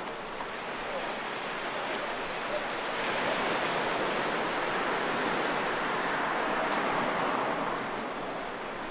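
Sea waves breaking and washing up the beach, the rush swelling about a third of the way in and easing near the end.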